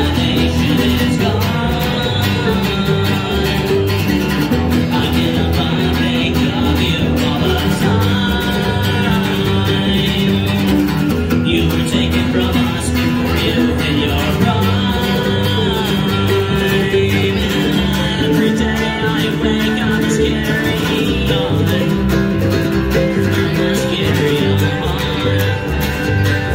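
Live bluegrass played on acoustic guitar, mandolin and upright bass, with a steady plucked bass line under the strummed and picked strings.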